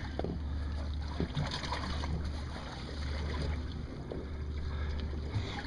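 Wind rumbling on the microphone aboard a small fishing boat, with water noise and a few small knocks.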